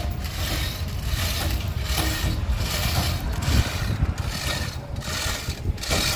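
A steady low rumble with footsteps on wooden ramp planks, a soft tread about every 0.8 s from about two seconds in.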